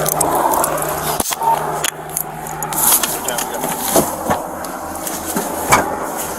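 Steady helicopter cabin noise with muffled voices under it and a few sharp clicks.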